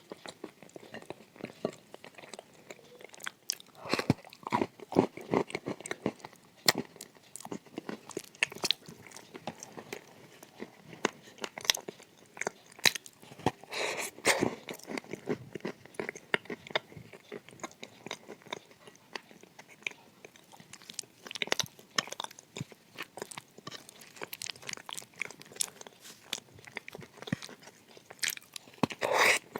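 Dry edible clay being bitten and chewed close to the microphone: irregular sharp crunches, loudest about halfway through and again just before the end.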